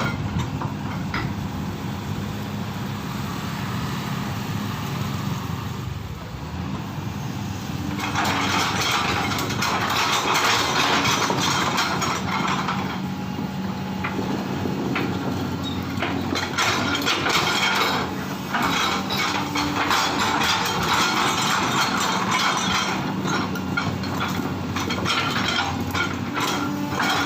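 Excavator's diesel engine running steadily, with louder spells of scraping and knocking of soil and stones, several seconds in and again through the second half.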